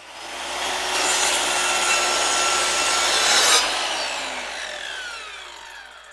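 An intro sound effect: a swelling whoosh of noise that breaks off sharply about three and a half seconds in, then fades away with several falling tones.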